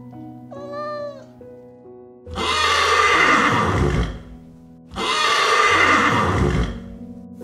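A horse neighing loudly twice, each call about two seconds long, over background music. Just before, near the start, a cat gives one short meow.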